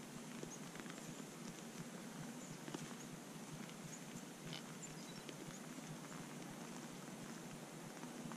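White-tailed deer stepping and feeding in snow: faint scattered crunches and light clicks over a steady, quiet background.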